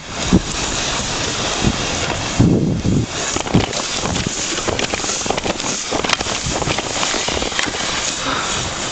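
Wind buffeting the microphone over the steady rumble of a dog-pulled rig running along a trail, with scattered knocks and rattles.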